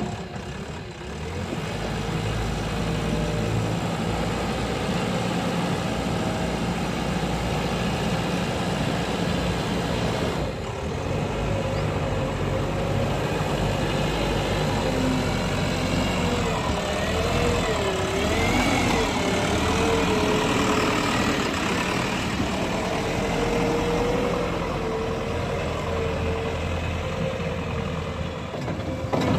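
Diesel engine of a JCB 3DX backhoe loader running steadily as the machine works. Its pitch rises and falls in a wavering whine for several seconds past the middle.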